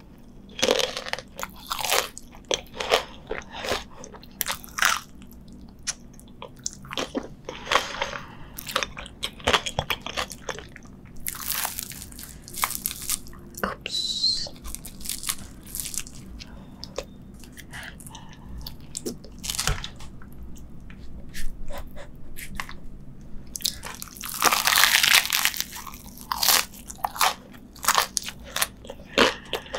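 Close-miked crunching bites and chewing of a deep-fried Korean corn dog, its crisp coating crackling in many short crunches. One long, loud crunch comes near the end.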